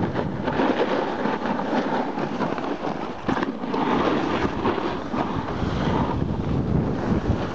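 A snowboard sliding and carving over packed snow: a continuous, uneven scraping hiss, with wind buffeting the microphone.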